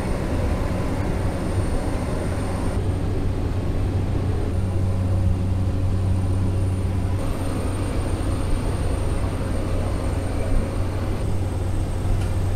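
Steady engine and propeller drone of a small single-engine propeller plane in cruise, heard inside the cabin, with a thin high whine over a deep hum.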